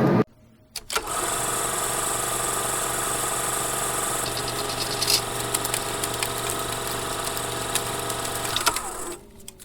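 Motorhome engine running steadily with road noise, a steady drone that starts about a second in after a brief click and fades out near the end.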